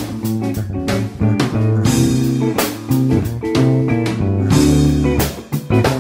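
The show's closing theme music, a band tune led by guitar over bass and a drum kit.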